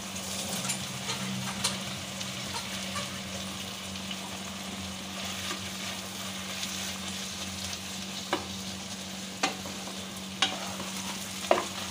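Taro stolons and chopped prawns sizzling in mustard oil in a wok while a spatula stirs them. In the second half there are four sharp knocks of the spatula against the pan.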